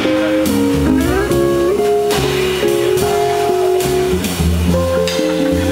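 Live jazz: an archtop hollow-body electric guitar playing, with a low bass line moving underneath.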